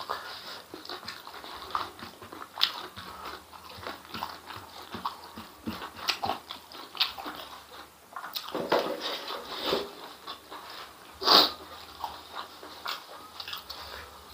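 Close-miked mouth sounds of a person eating spicy intestines and rice by hand: wet chewing, smacking and clicking, with one louder click about eleven seconds in.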